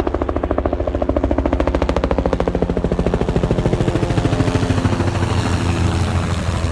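A nearby engine running steadily, its rapid, even firing pulses loud and continuous; the low hum thickens somewhat partway through.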